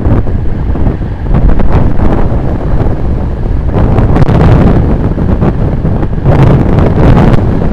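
Heavy wind buffeting on the camera microphone of a road bike descending at speed: a loud rushing rumble that surges several times.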